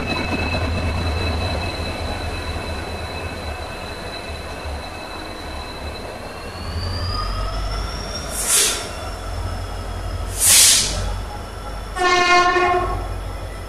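Passenger train hauled by a WDP4B diesel locomotive, with a low rumble and a high steady whine that rises in pitch about halfway through. Two short hisses follow, then a short horn blast near the end.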